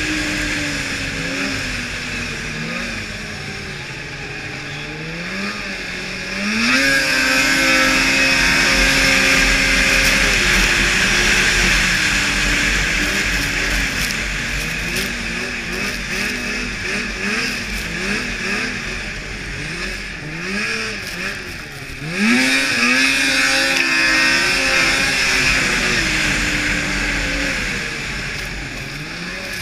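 2002 Blade Striker 600 snowmobile engine at racing speed, heard from on board. Its revs rise and fall repeatedly, with a sharp climb about six seconds in and again about two-thirds of the way through.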